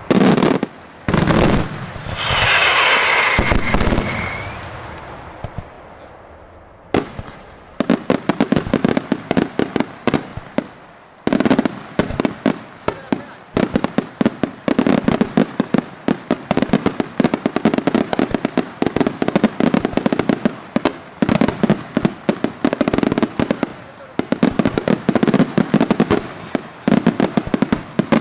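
Daytime fireworks display: a few heavy bangs and a rushing hiss in the first seconds. From about eight seconds on there is a dense, rapid crackle of firecracker strings going off without a break.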